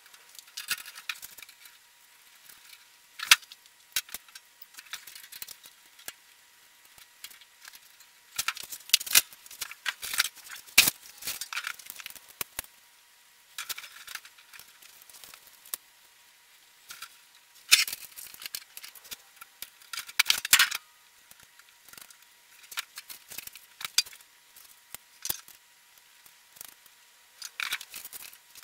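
Sped-up clinks, clicks and rattles of sheet-metal cabinet panels and small hardware being handled during assembly of a Central Pneumatic blast cabinet, coming in several louder bursts of clatter, over a faint steady hum.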